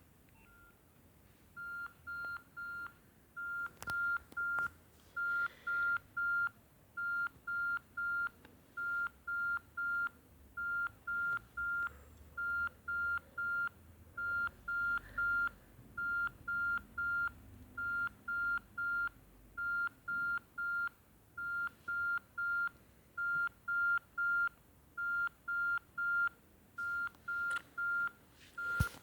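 Nokia 6070 mobile phone playing a beeping ringtone: one high electronic tone pulsed in quick groups of about three short beeps, the groups repeating roughly once a second.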